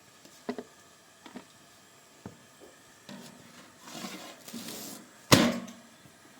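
Handling noise: a few light taps, a stretch of rustling, then one sharp, loud knock about five seconds in.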